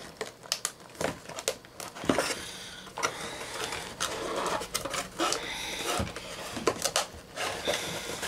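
Toy packaging being handled: cardboard and plastic rustling with scattered short clicks and knocks as a figure is worked free of its box.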